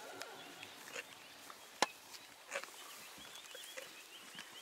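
Quiet bush ambience with faint high bird chirps in the second half and a few sharp clicks or snaps, the loudest just under two seconds in.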